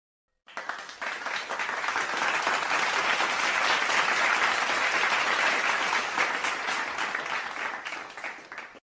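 Crowd applauding, a dense patter of many hands clapping that starts about half a second in, swells, and thins out near the end before cutting off abruptly.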